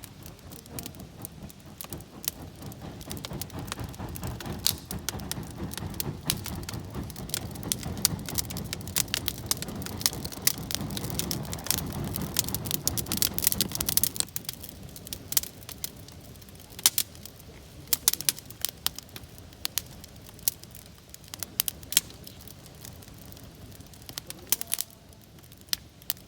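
Wood campfire crackling and popping, with sharp snaps scattered throughout. A low rushing sound swells over the first half and drops away suddenly about halfway through.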